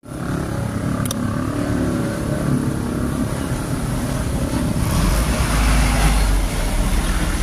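Road traffic: the engines of passing trucks, vans and motorcycles over a steady rumble, with a heavier low rumble about five to six and a half seconds in.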